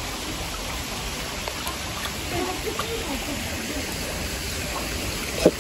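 Steady rush of water, with carp churning the pond surface as they crowd for food. A short sharp sound near the end.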